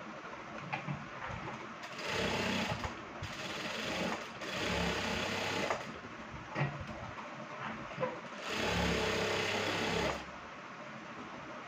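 Industrial lockstitch sewing machine stitching in three runs of one to two seconds each, with short pauses and a few sharp clicks between them as the fabric is turned and guided.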